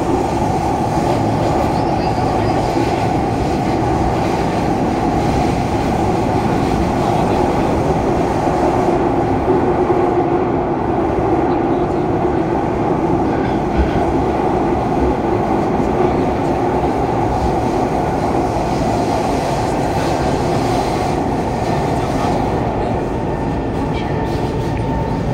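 Steady interior running noise of a Kawasaki Heavy Industries C151 metro train travelling through a tunnel: a continuous rumble of wheels on rail and tunnel roar inside the carriage.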